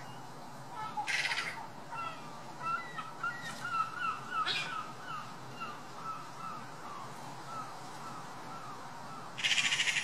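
Eurasian magpies giving harsh, rattling chatter, one burst about a second in and a longer one near the end: the alarm chatter magpies give at a predator. Other birds chirp in short notes in between.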